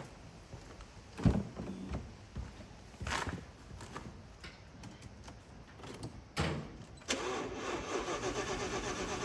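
A few scattered knocks, then from about seven seconds in the Audi S6's starter motor cranks the 5.2-litre V10 with a steady rhythmic churn.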